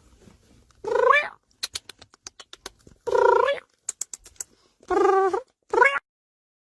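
A cat meowing four times in short calls, the last two close together, with faint clicks in between. The sound cuts off abruptly about six seconds in.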